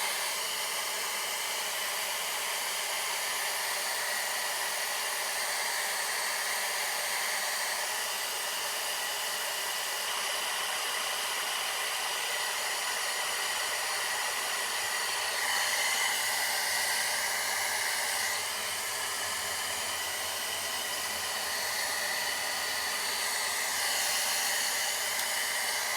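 Handheld blow dryer blowing on its cold-air setting: a steady rush of air with a faint motor whine. It is used to set styling foam on freshly laid baby hair, and grows a little louder twice, about halfway through and again near the end.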